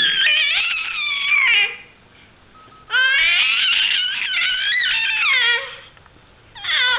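Baby making high-pitched squealing noises, the pitch sliding up and down: one call ending about a second and a half in, a long one from about three seconds to nearly six, and a short one starting just before the end.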